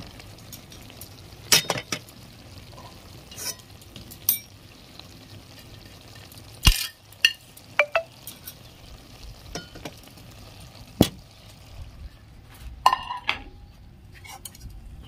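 A metal utensil clinking and scraping against a cooking pan at irregular moments, a few strikes ringing briefly, over a faint steady hiss, as the finished small-fish curry is stirred and taken off the stove.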